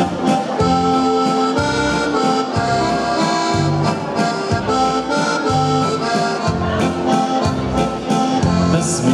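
Music: long held melody notes over short, repeated bass notes.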